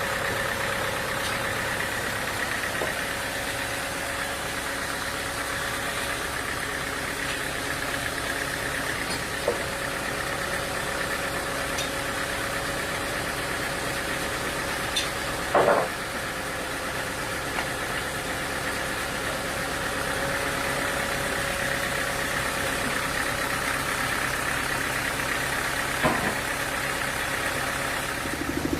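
Sawmill machinery running steadily with an even hum and whine. A few sharp knocks stand out, the loudest about two-thirds of the way through.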